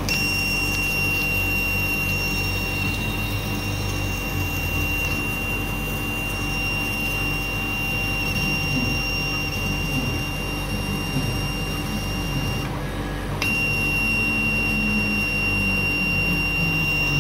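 CO2 laser cutting machine cutting teak veneer: a steady machine and fume-extraction fan hum with a steady high-pitched whine over it, which drops out briefly about two-thirds of the way through.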